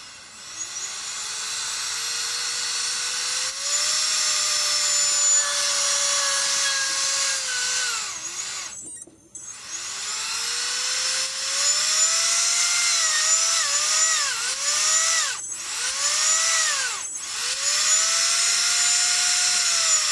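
Turnigy P2627L 4200kv brushless outrunner motor spinning with no load, its whine rising and falling as the throttle is worked up and down. It winds down and stops about 9 s in, then revs up and down several times in quick succession, briefly stopping twice, and ends with one long rise and fall. It is noisy, which the builder puts down to the open rotor bell catching a lot of air.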